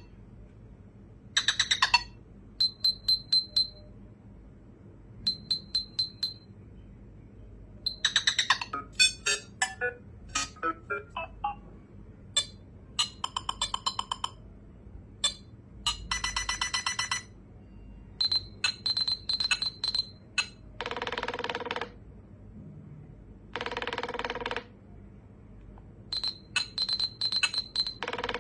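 Nothing Phone (1) ringtones and notification sounds playing one after another: short electronic bursts of quick high clicks and blips in varying patterns, with a few longer buzzy tones in the second half.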